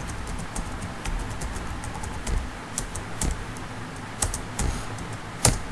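Typing on a computer keyboard: irregular single keystroke clicks, with one sharper click near the end.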